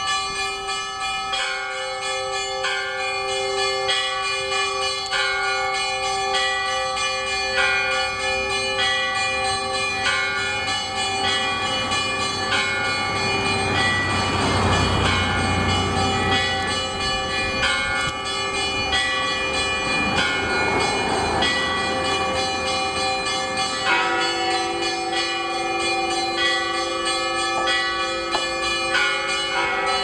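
Orthodox church bells ringing: several bells of different pitches struck again and again in a repeating pattern, their tones ringing on and overlapping. A rumbling rush of noise swells twice in the middle, for a couple of seconds each time.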